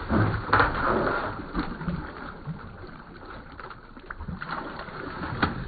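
Water splashing as a dog slips off the side of a kayak and thrashes beside the hull, loudest in the first second or so and calmer after.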